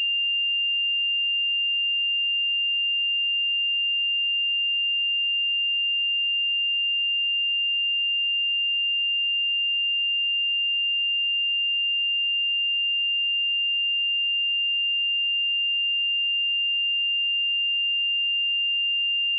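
A pure 2796 Hz sine-wave test tone, one steady high-pitched note held at constant pitch and volume.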